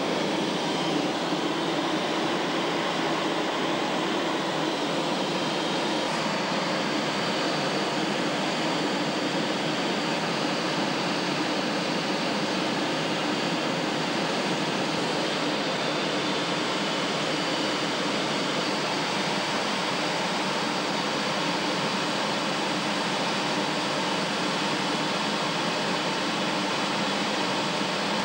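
Steady cockpit noise of a jet aircraft in flight: the rush of engine and airflow heard inside the canopy, with a faint high whine held throughout.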